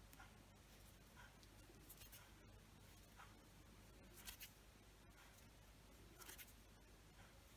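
Faint, scratchy rustles of a crochet hook and yarn as single-crochet stitches are worked, a soft brushing sound about every two seconds over near-silent room tone.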